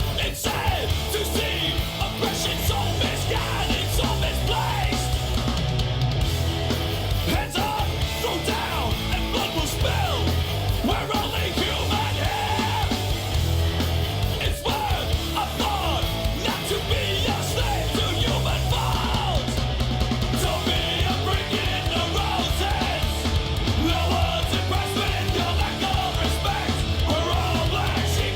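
Loud, driving punk/heavy-metal style rock music with shouted vocals, playing steadily throughout.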